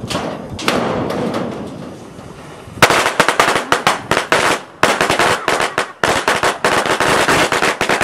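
A hiss for almost three seconds, then a string of firecrackers going off in a rapid, loud run of sharp cracks, broken by two brief pauses.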